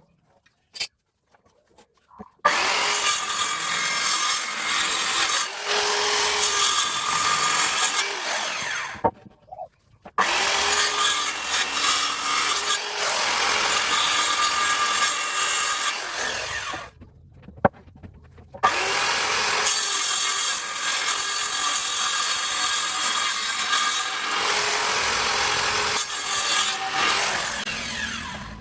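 A power tool cutting or working wood, running in three long passes of several seconds each with short pauses between.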